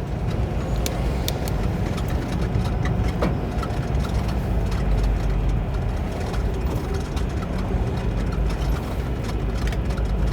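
Semi truck's diesel engine and road noise, a steady low rumble heard from inside the cab while driving, with a few faint clicks.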